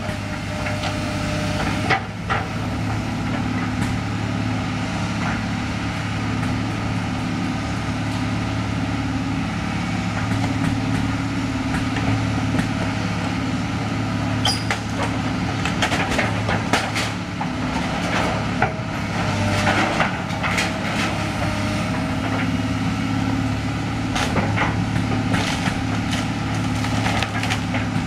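Hydraulic excavator's diesel engine running steadily under load while its bucket pulls at a building's corrugated metal roof. Scattered bangs, creaks and crunches of sheet metal and debris come through, more often in the second half.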